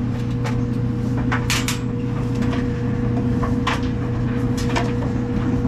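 Whirlpool clothes dryer running with a steady hum, under scattered metallic clicks and taps as screws and panel parts are handled.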